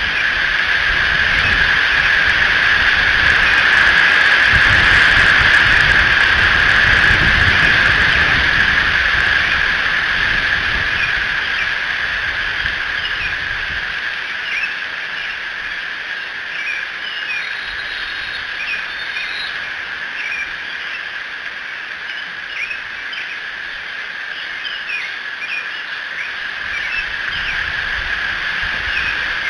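Outdoor dawn ambience in a storm: a steady high-pitched hiss throughout, a low rumble that swells and fades over the first half, and many small birds chirping through the second half.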